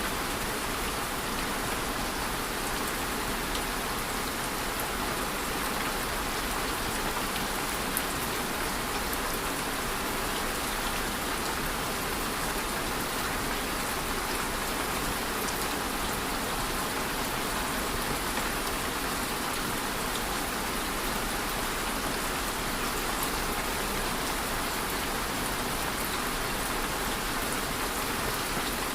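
Steady rain falling, an even hiss of rain on a surface with scattered individual drop ticks.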